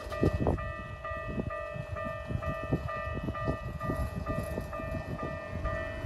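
Japanese railway level-crossing warning bell ringing steadily, its electronic chime repeating over a low, irregular rumble.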